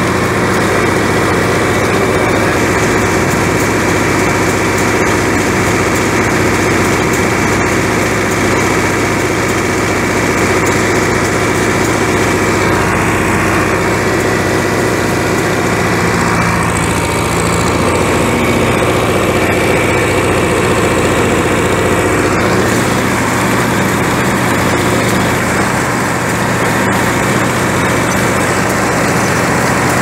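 John Deere 3010 tractor engine running loud and steady, heard from close by on the tractor.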